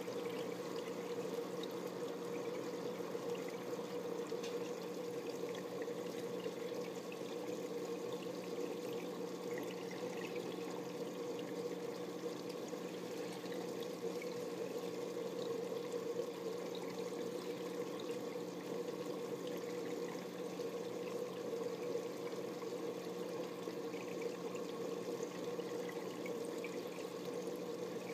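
Aquarium water circulating: steady trickling and pouring of water with faint crackles, over a low steady hum.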